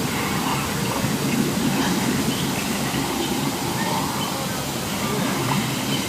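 Steady low rumbling from the volcano show's sound effects, with no breaks.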